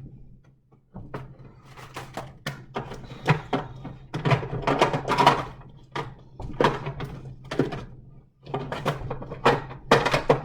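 Food containers and jars being handled, moved and set down while a refrigerator is cleared out: a run of irregular knocks and thunks.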